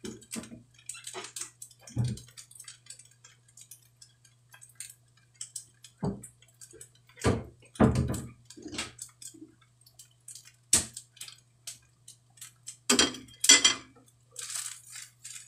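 Kitchen utensils clattering: a spatula knocking and scraping in a frying pan and against a bowl as fried rice is dished up. The clatters come in scattered bursts, loudest about halfway through and again near the end, over a low steady hum.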